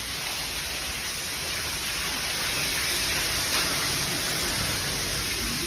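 Water gushing and spraying steadily from a burst pipe: a constant rushing hiss.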